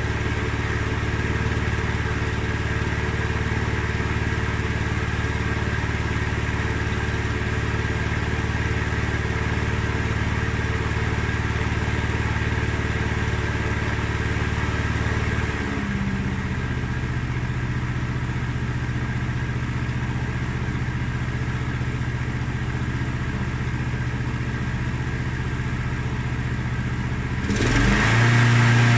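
Mountfield SP536ES mower's RM55 160cc single-cylinder petrol engine running steadily. About halfway through its speed drops to a lower, steady pace, and near the end it speeds up and gets louder.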